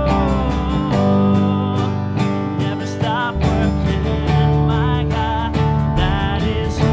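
Live worship band playing an instrumental passage: strummed acoustic guitar over electric bass, electric guitar and a steady drum beat.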